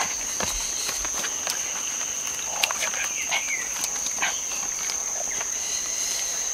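Insects calling in one steady, high-pitched drone, with scattered light clicks and rustles from a person moving about and handling a woven basket.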